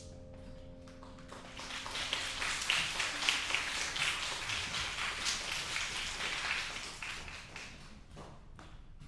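The final piano chord rings and dies away, then an audience applauds, starting about a second and a half in, swelling and fading out near the end.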